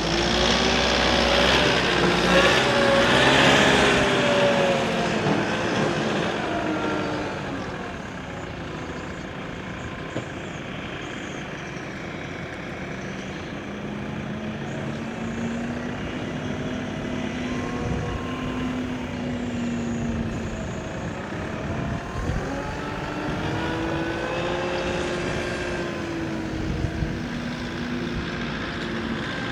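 Engines of passing motor vehicles, one passing close and loud in the first few seconds, then engine tones that slowly rise and fall as further traffic goes by.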